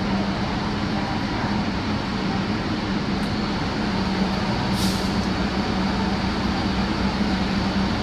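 R62A subway car running on the rails, heard from inside the car: steady wheel and motor noise with a constant low hum. A short hiss cuts in about five seconds in.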